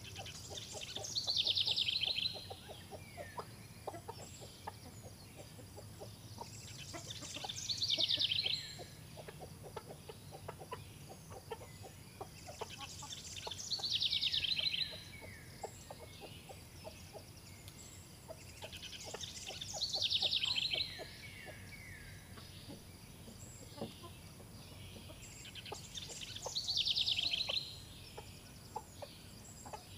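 Hens clucking softly, with a louder, higher call that falls in pitch, repeating about every six seconds.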